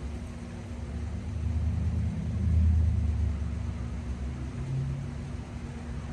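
Low engine rumble of a passing motor vehicle, swelling to its loudest a little before halfway and then fading away.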